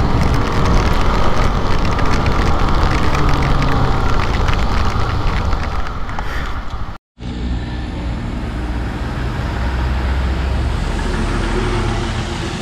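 Bajaj Pulsar RS200's single-cylinder engine running as the motorcycle rides on a wet road in fresh rain, with tyre hiss and a crackle of many small ticks on the microphone. The sound drops out briefly about seven seconds in, then the ride goes on with a heavier low rumble as a truck passes close near the end.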